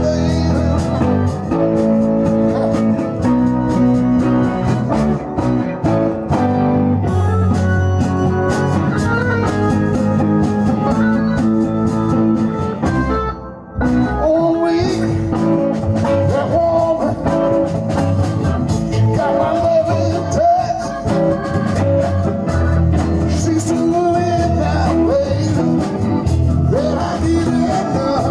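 Live band playing a blues-rock number on electric guitars, drums and keyboard through a PA. The band drops out briefly about thirteen seconds in, then comes back in.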